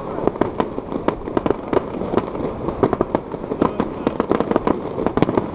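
Fireworks display going off in a rapid, continuous string of sharp bangs and pops, several a second, over a steady background rumble.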